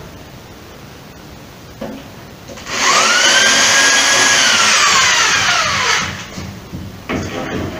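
Corded electric drill in melamine cabinet panel: the motor spins up sharply to a steady high whine, then slows and winds down over about a second and a half.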